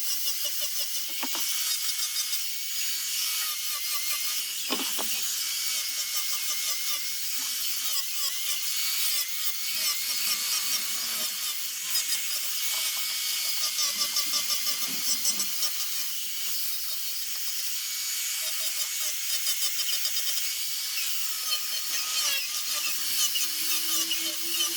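Small high-speed power sanding tool grinding a zelkova root, a high-pitched whine with hiss whose pitch wavers as the tool is pressed into the wood. A few light knocks come through now and then.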